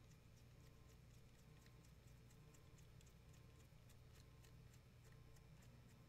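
Faint, irregular light ticks of a hand screwdriver turning a long screw into a metal combination lock housing, over a low steady room hum; otherwise near silence.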